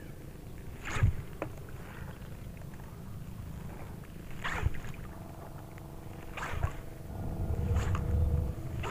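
Wind rumbling on the microphone by the open sea, with four short rushing splashes or scuffs. A steady motor hum comes in about halfway through.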